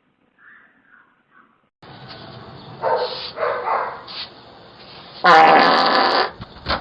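A loud fart lasting about a second near the end, picked up by a Ring doorbell camera's microphone. It is preceded by two shorter bursts a little after the clip starts.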